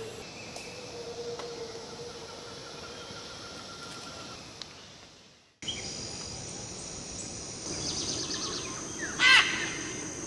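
Tropical forest ambience with steady insect buzzing. It breaks off abruptly about halfway, then resumes with high insect buzzing, a quick run of ticks and one loud, short animal call near the end.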